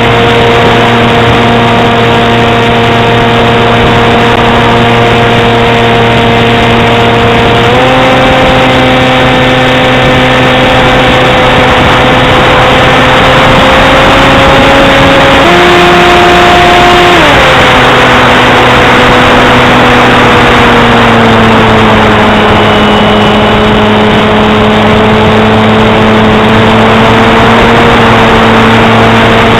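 Steady motor-and-propeller drone of a radio-controlled FPV aircraft, picked up close by its onboard camera. The pitch steps up about a quarter of the way in, jumps higher for a couple of seconds near the middle, then drops back and slowly sinks lower as the throttle changes.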